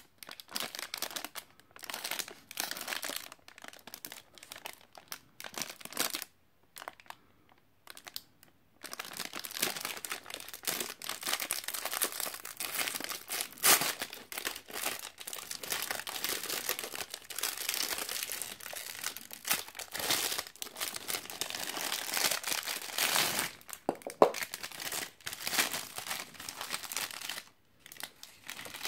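Protein bar's plastic wrapper crinkling as it is handled and opened: short scattered crackles at first, then almost continuous crinkling from about nine seconds in, stopping shortly before the end.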